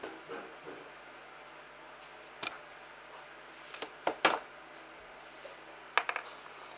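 Plastic pen being taken apart by hand: a handful of sharp plastic clicks and taps, one about two and a half seconds in, a quick cluster a little after four seconds, and another about six seconds in.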